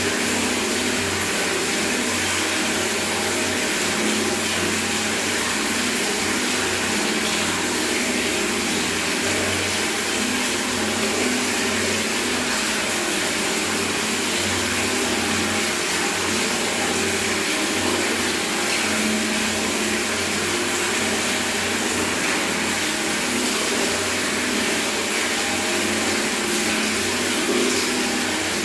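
Tap water running steadily from a bathroom faucet straight into a bucket, a constant splashing rush with no breaks.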